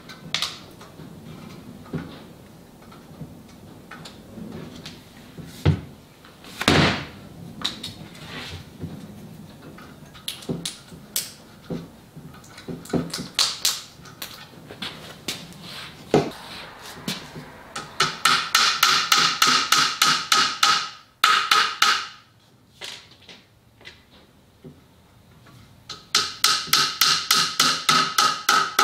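Claw hammer tapping glued wooden dowels into a drawer's dowel holes: after scattered single knocks and clicks, two runs of fast light taps, about six or seven a second, each with a short ringing note.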